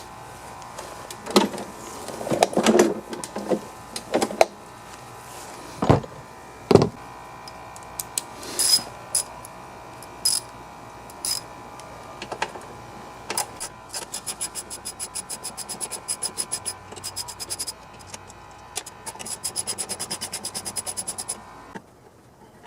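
Ratchet wrench clicking in quick, even runs as the bolts holding the mower engine's shroud are loosened, after a few knocks and clatters of tools and metal parts being handled.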